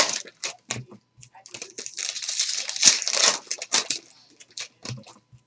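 Foil wrapper of a trading-card pack crinkling and crackling as it is handled and torn open. The crackle comes in bursts, densest in the middle, and thins out near the end.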